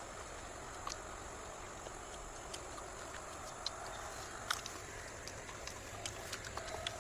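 Steady low background noise broken by a scattered series of faint, short clicks and taps, a slightly sharper one about four and a half seconds in.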